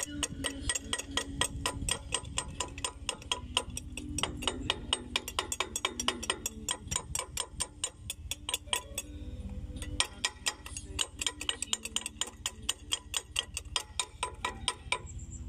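Rapid, even mechanical ticking, about six a second, over a low steady hum.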